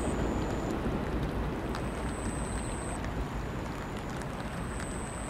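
Steady rain with a dense wash of running water noise. A faint, thin, high whine comes and goes over it.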